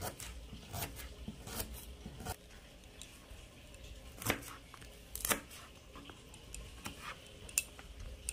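Kitchen knife slicing through the tender inner core of a banana flower, the blade knocking against the cutting board in about ten crisp, short cuts at uneven intervals.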